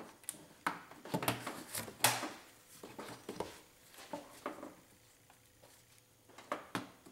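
A rubber intake boot and plastic air-intake ducting being worked by hand onto a throttle body: irregular clicks, knocks and rubbing, the loudest about two seconds in.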